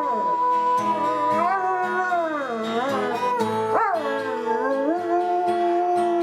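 A dog howling in long, wavering notes that slide up and down, over music.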